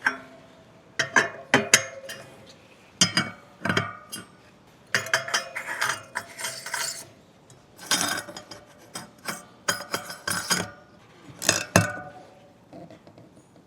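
Steel disc brake rotor and its bolts clinking and rattling as they are handled and fitted to the wheel hub, sharp metallic clicks in irregular clusters, some followed by a brief ringing tone.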